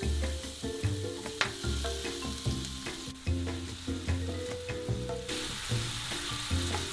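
Diced onion sizzling in hot oil in a frying pan as it goes in, stirred with a wooden spatula; the sizzle grows stronger about five seconds in. Background music with a bass line plays underneath.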